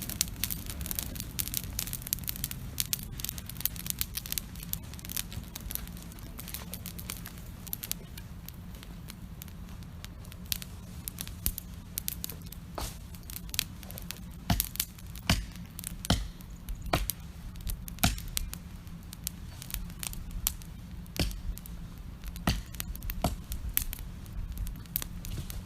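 Wood campfire crackling, with many sharp pops and snaps that come thicker and louder in the second half, over a steady low rumble.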